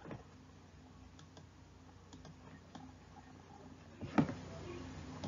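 Faint scattered clicks from operating a computer, with a sharper click about four seconds in, over a low steady hum.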